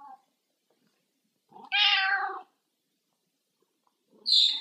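A pet cat meowing once, a single drawn-out meow about two seconds in, then a brief high squeak near the end.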